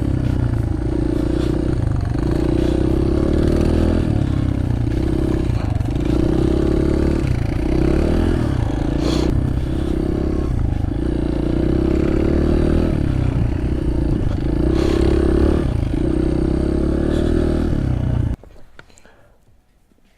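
Honda CRF100F dirt bike's single-cylinder four-stroke engine running under load through snow, its pitch rising and falling again and again as the throttle is opened and eased off. The engine sound cuts off suddenly near the end.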